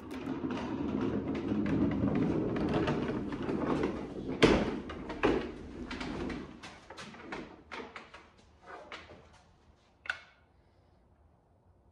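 Wheeled furniture dolly rolling with the wooden hutch top on it: a low, rough rumble of casters for about six seconds, with two sharp knocks partway through. Then come scattered light clicks and taps, the last a sharp click about ten seconds in.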